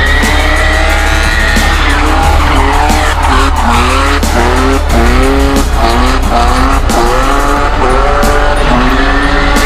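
BMW E30 drift car's engine revving hard, climbing and dropping again and again, with tyres squealing as it slides, over music with a heavy bass line.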